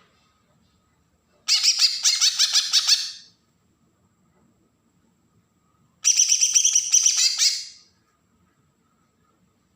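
Kalimantan cucak ijo (green leafbird) giving its besetan song: two bursts of rapid, harsh chattering notes, each about two seconds long, a few seconds apart.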